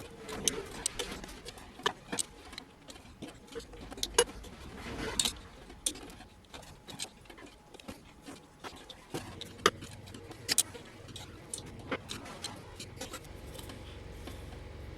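Irregular metal clicks and taps of a hand tool tightening the bolts on the end flange of an electric lawn mower's motor, a part-turn at a time in turn.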